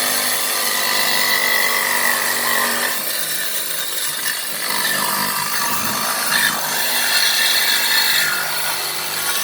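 Saw cutting through a steel catalytic converter exhaust pipe, a continuous loud grinding rasp with a shifting metallic squeal as the blade works through the metal.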